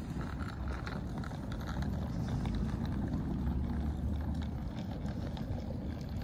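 Suitcase wheels rolling over outdoor paving, a steady low rumble, with footsteps and small clicks over it.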